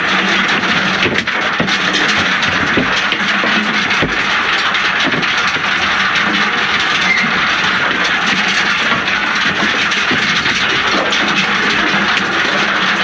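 Stone picker at work: a steady loud rattle of stones tumbling in its rotating steel sieve drum, with scattered knocks of stones hitting the steel hopper, over a steady machine hum.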